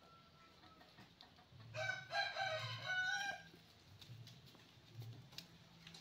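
A rooster crowing once, a single crow in several joined parts lasting about a second and a half.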